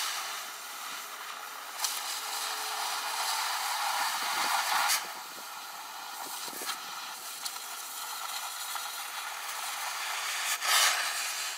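Oxy-fuel cutting torch hissing steadily as it cuts through 3/8-inch steel plate, with a few sharp pops and spits, the loudest just before the end.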